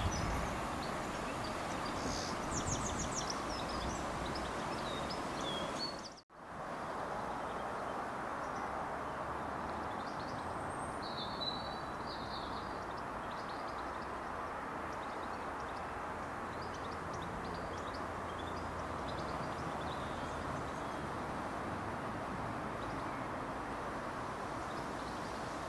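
Diesel locomotive engines at a distance: first a Class 66 running light, then after a cut about six seconds in, a steady low rumble from a Class 70 hauling a freight train on its approach. Birds chirp throughout.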